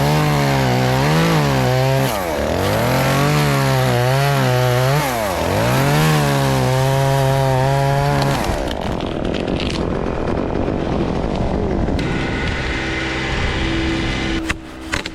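Two-stroke chainsaw running at high revs and cutting through black walnut wood, its pitch dipping and recovering several times as the chain loads up in the cut. About eight seconds in it drops away, leaving a lower, rougher engine hum.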